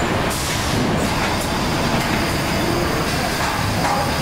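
Sugar-mill packing and palletizing machinery running, a loud steady mechanical din with no breaks.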